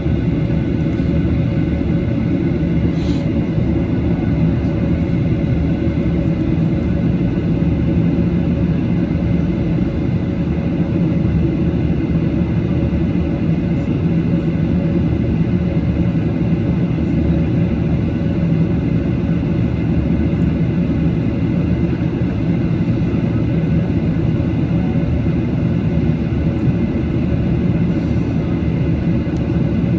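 Steady low cabin drone inside a Boeing 737-800 on the ground, a constant rumble with a steady hum and no change in pitch. One faint click about three seconds in.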